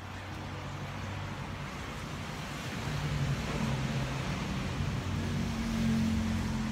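Hum of road traffic from a motor vehicle, its engine drone shifting in pitch and growing louder toward the end before easing off.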